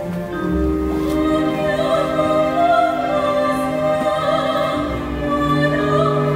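Classical soprano singing with a wide vibrato over a chamber orchestra's sustained strings and low double-bass notes, the voice coming in about two seconds in.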